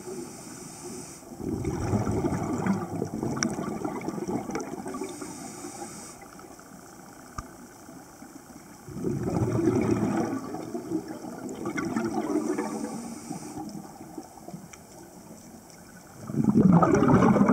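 Scuba diver's regulator breathing underwater: exhaled bubbles burbling out in three long bursts, one per breath, with quieter gaps between them.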